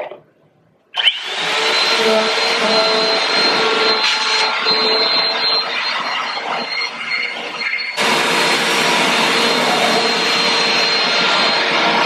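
Bissell PowerForce Compact upright vacuum switching on about a second in and running loudly, sucking at carpeted stairs through its hose attachment. A steady high whine sits over the rush of air, and the sound steps up abruptly about two-thirds of the way through.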